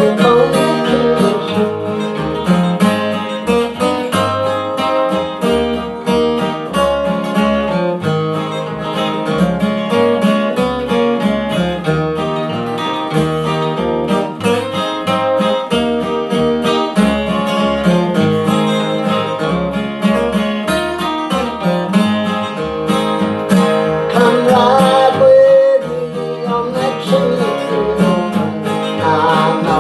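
Acoustic guitar picked with a steady, regular bass-note rhythm, with a man singing a country song over it in places, most clearly near the end.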